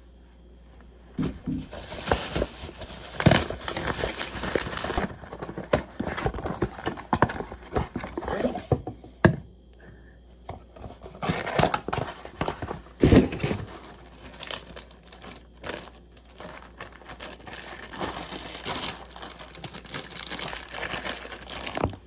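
Packaging being handled and unwrapped by hand: irregular crinkling and rustling with some tearing, and a couple of sharp clicks about 9 and 13 seconds in.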